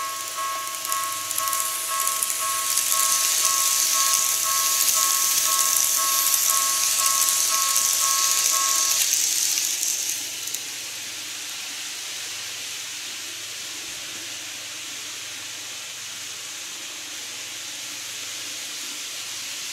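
Model level-crossing warning bell ringing in an even, rapid clang until about 9 seconds in, over the rolling hiss of a KATO N-gauge commuter train model running on the track. The train noise swells a couple of seconds in and fades about 10 seconds in, leaving a quieter steady hiss.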